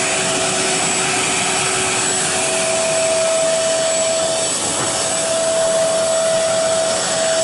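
Carpet shampooer's suction motor running steadily through its hose and hand tool, a constant rush with a steady whine that briefly drops out a little past halfway.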